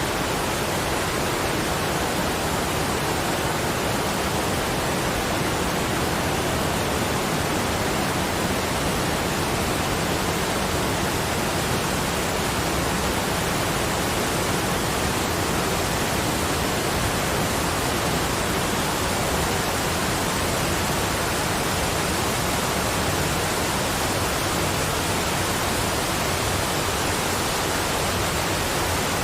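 Steady, even rushing noise of falling water, with no changes or separate sounds in it.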